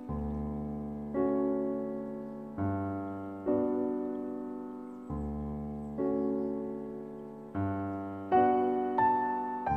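Slow piano background music: chords struck about once a second, each ringing and fading before the next.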